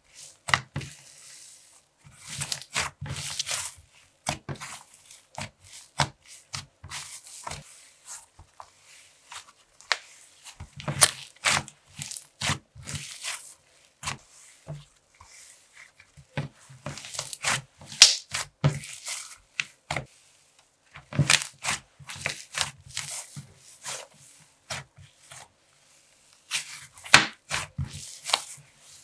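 Icee slime with marshmallow beads being squeezed, poked and pressed by hand against a hard surface: irregular sticky crackles, clicks and small pops, some with a soft thud as the hand presses down.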